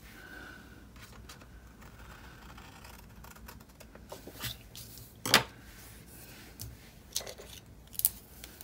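Scissors snipping paper a few times in short sharp cuts, with quieter paper handling between them; the loudest snip comes a little past halfway.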